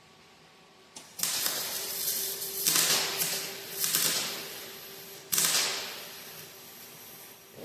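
Welding on a steel truck frame: several bursts of harsh crackling hiss, the first starting about a second in, over a faint steady hum.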